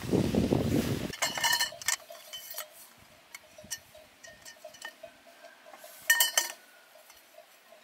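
Plastic tarp rustling for about a second, then metal tent-pole sections clinking and clicking against each other as they are unfolded and slotted together. The loudest, ringing clinks come about six seconds in.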